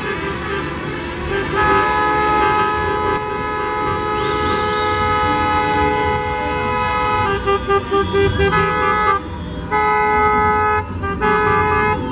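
Car horns honking in a slow street convoy, several at once. One long held blast runs for several seconds, then a quick run of short toots, then more long blasts, over the noise of traffic. This is celebratory honking from a flag-waving procession.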